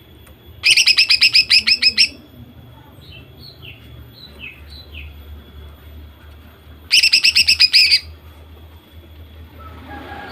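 Female greater green leafbird (cucak ijo) calling: two loud bursts of rapid repeated notes, the first about a second in and the second about seven seconds in, with a few soft down-slurred chirps between them.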